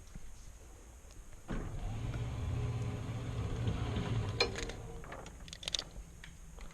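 A motor hum starts about a second and a half in and runs for about three seconds, followed by a few sharp clicks.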